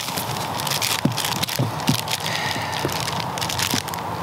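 Paper wrapping crinkling and rustling with many small irregular crackles as it is handled and pulled off an item.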